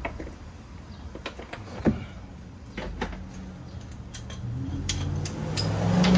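Hand tools working on the rear strut bolts: scattered light clicks and knocks, the sharpest about two seconds in. A low hum builds up toward the end.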